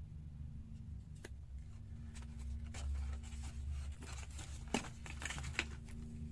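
Handling noise from unboxing wireless earbuds: the plastic charging case and the packaging are handled, with a click about a second in, then light rustling of cardboard and plastic bags and small clicks, the sharpest one about three-quarters of the way through. A steady low hum runs underneath.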